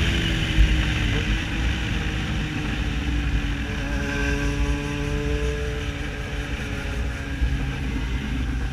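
Yamaha XJ6 Diversion's inline-four engine through a full, pipe-only exhaust, running at a steady cruise; its pitch sinks slowly and then rises a little, over a steady low rumble.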